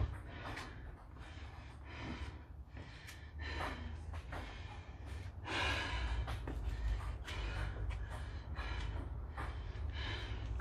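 A woman's heavy, gasping breaths, one after another, as she recovers out of breath from a set of burpees, over a steady low hum.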